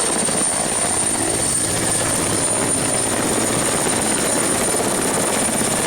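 Helicopter sound running steadily: a fast even rotor chop under a steady high whine.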